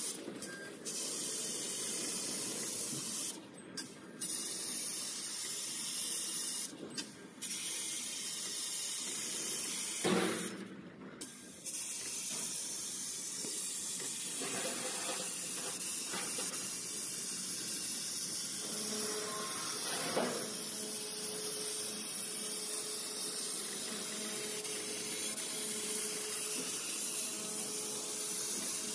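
Fiber laser cutting 3 mm mild steel: the assist-gas jet at the cutting head hisses steadily, cutting out briefly four times as the head moves between cuts. There is a short sharp burst about ten seconds in.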